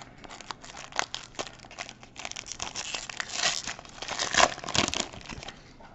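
A plastic trading-card pack wrapper from a Panini Mosaic basketball pack being torn open and crinkled by hand, as a run of crackling and tearing. It is loudest about four to five seconds in.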